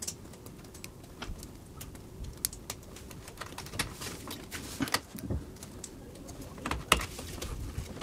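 Sleeved PCIe power cable being handled and its plastic plug pushed into the graphics card's power socket: cable rustle with scattered sharp plastic clicks, the loudest about a second before the end.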